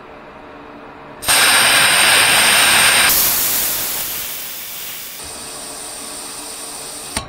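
Compressed air hissing out of an air-ride storage tank through the valve on its brass fitting, held open with a screwdriver to bleed down the full tank. The hiss starts about a second in, loud for about two seconds, then fades to a softer steady hiss and stops with a click near the end.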